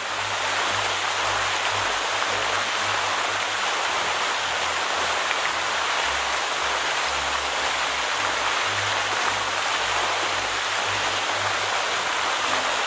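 Steady rush of falling water, like a small waterfall.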